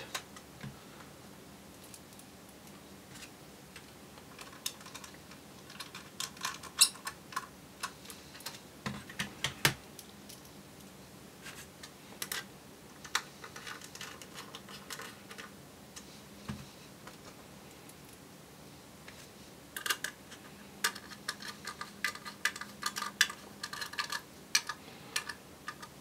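Small Phillips screwdriver turning screws into a 2.5-inch SSD's mounting bracket, with light clicks and taps of small metal parts being handled. The clicking comes in two spells, with a quiet stretch of several seconds between them.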